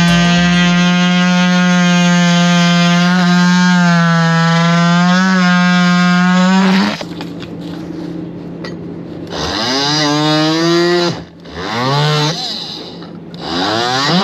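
A handheld power tool working on the teak deck. Its motor runs at a steady pitch for about seven seconds, then is triggered in two short bursts that rise in pitch as it spins up, about halfway through and again near the end.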